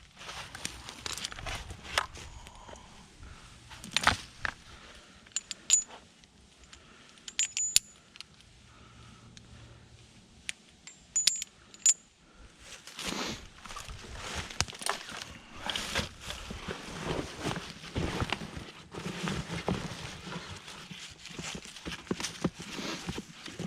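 Small metal pieces of climbing hardware clinking and jingling in a few sharp, ringing clicks. About halfway through this gives way to a longer stretch of scraping and rustling.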